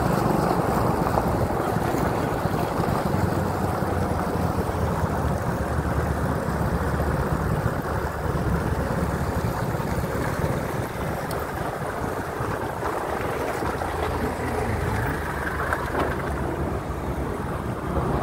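Steady rush of wind and road noise from a mountain bike ride through slow traffic, with car and motorcycle engines running around it.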